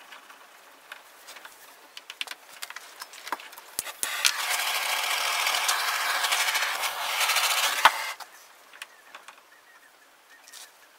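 Aerosol spray can sprayed in one steady hiss of about four seconds, ending with a sharp click as the nozzle is released. Light ticks and handling noise before and after.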